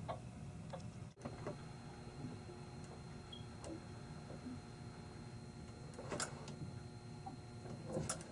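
Faint clicks and clacks of the remote-operated shift actuators and their linkage moving the transmission shift cables, over a low steady hum. The clearest clack comes about six seconds in, with a short cluster of clicks near the end.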